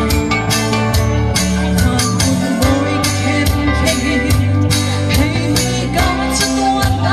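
A woman singing a gospel worship song into a microphone over a backing track with a steady drum beat, played through a portable PA speaker.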